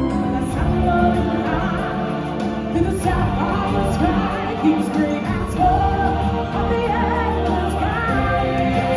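Live stage-show music: singers performing a song over an accompanying backing track.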